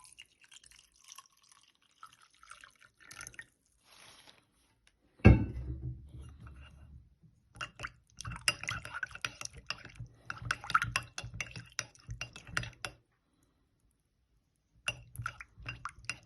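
Warm water going into a mug and a spoon mixing it, clinking many times against the mug's sides. A single loud knock about five seconds in is the loudest sound.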